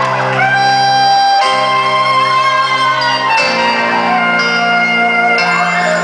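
Recorded music playing loudly for a dance show: held chords that change about every two seconds.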